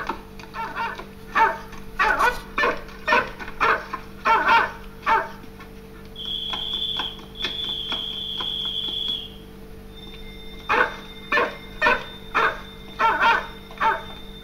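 Dogs barking over and over in quick succession. Partway through, the barking pauses for a few seconds while a high steady whistle sounds twice, then the barking starts again.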